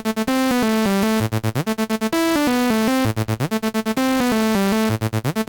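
Electronic synthesizer loop: a bright lead stepping through a descending melody, broken every second or two by fast stuttering repeated notes, played back through the Tape Bus tape-saturation plugin.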